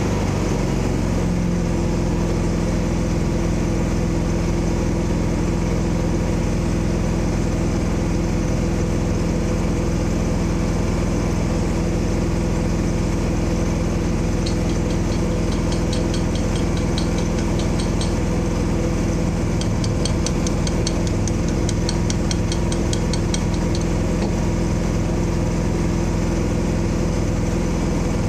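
A motor or engine running steadily at an even speed, settling to its pitch just after the start. About halfway through come two stretches of fast, high ticking.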